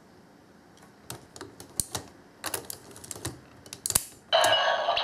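Sharp plastic clicks, about a dozen, spaced irregularly, as a Kyoryuger Zyuden battery toy is handled and loaded into its electronic toy. Near the end the toy's electronic sound effect and voice start up loudly.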